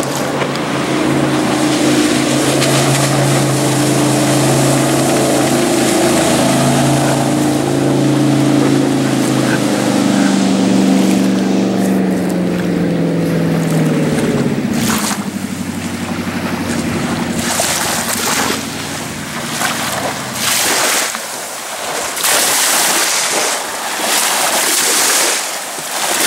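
A jet boat's engine running as it passes close by, its pitch falling about fourteen seconds in. Then its wake washes ashore in repeated splashes against the beached boat's hull and the sand.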